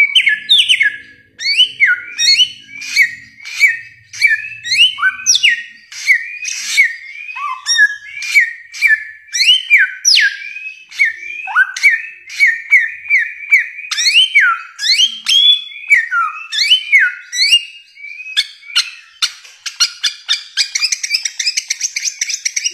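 Bare-throated whistler singing a long run of loud whistled notes, each a quick upward or downward sweep, about two a second. Near the end the song turns into a dense, rapid twittering.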